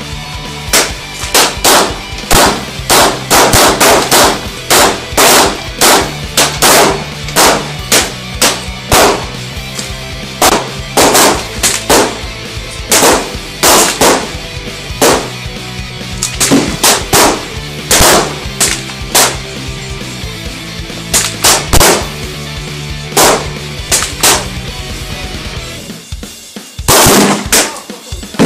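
Gunshots in quick succession over heavy metal music with a pounding beat, with a short break near the end.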